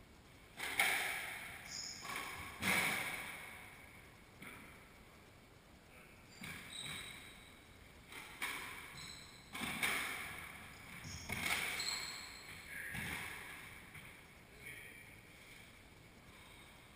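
A squash rally: the ball is struck by racquets and slaps against the court walls, each hit echoing off the walls, with sneakers squeaking on the hardwood floor between shots. The hits come every one to two seconds and die away in the last few seconds.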